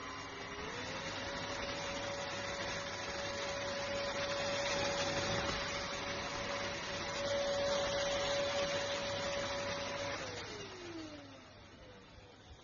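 ENOLUX K7 Pro cordless stick vacuum running, a steady motor whine over rushing-air hiss; the whine steps up in pitch about half a second in. About ten seconds in it is switched off and the whine falls away as the motor winds down.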